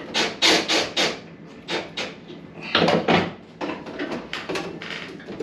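A run of short knocks and scraping clatter of hard objects being handled, with a denser, louder cluster about three seconds in.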